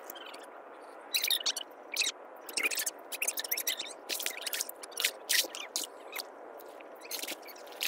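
Lotus leaves and stalks crackling, snapping and rustling in quick clusters of crisp clicks as a person wades through them and handles freshly picked lotus stems.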